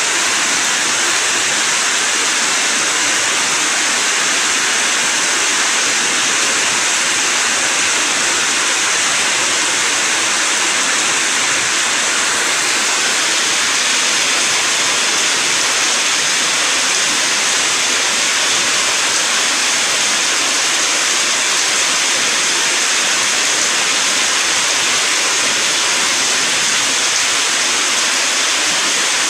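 Steady, unbroken rushing of water in a storm.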